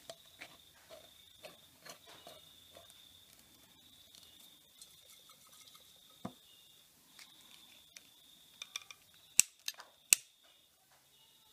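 Metal screw-top lid being turned and handled on a small glass jar, with a run of light clicks of metal on glass. Two loud sharp clicks come near the end, over a steady high-pitched background tone.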